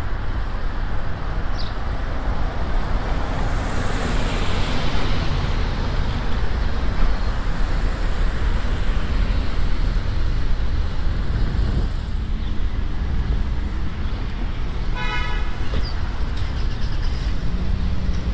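Steady city street traffic heard from a moving bicycle, with wind rumbling on the microphone. A short horn toot sounds about fifteen seconds in.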